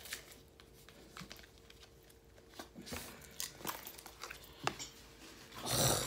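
Cardboard palette packaging being torn and crinkled open by hand, with scattered sharp crackles and a louder rustling tear near the end.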